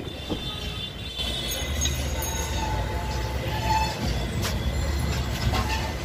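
Motorcycle workshop ambience: a steady low rumble with faint high squeals, and a couple of sharp metal clinks of hand tools near the end.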